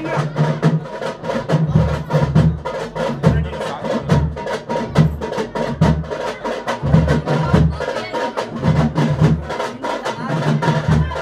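Festival drums played continuously in a fast rhythm: rapid sharp stick strokes over a repeating deep beat.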